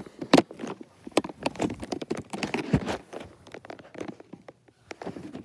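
Handling noise from a phone being moved around and brought down onto bedding: irregular knocks, taps and rustles, busiest in the first half and thinning out towards the end.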